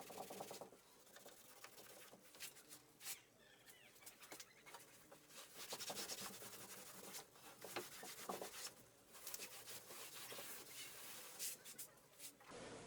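Faint, irregular rubbing and rustling of upholstery material being worked by hand, with scattered light clicks and scrapes.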